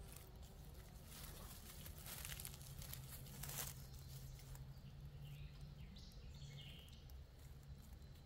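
Faint rustling and scraping of a climber's rope and strap gear being handled as he takes off his lineman's belt, loudest in the first half. Bird chirps midway, over a faint low steady hum.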